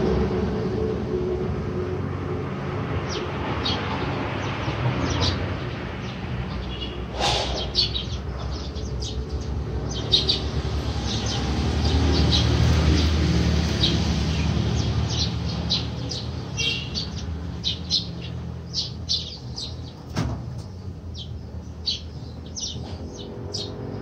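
Caged budgies and lovebirds giving many short, sharp chirps, scattered at first and thicker in the second half, over a steady low rumble.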